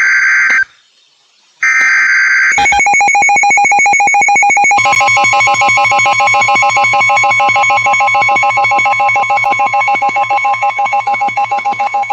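Emergency Alert System SAME header: buzzy digital data bursts about a second long, the last ending about two and a half seconds in. It is followed by a loud, rapidly pulsing attention tone that starts on one pitch and adds a second, higher tone about two seconds later. The sequence signals a severe thunderstorm warning.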